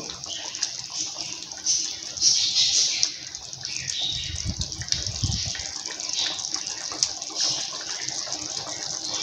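Thick garlic and tamarind gravy (kuzhambu) bubbling and spitting in a pan on the boil, stirred with a wooden spatula. A low rumble comes about four seconds in.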